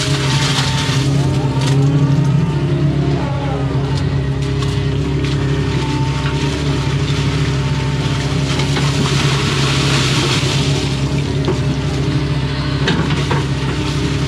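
Excavator's diesel engine running steadily under load, with the whine of its hydraulics rising and falling as the boom and bucket are worked.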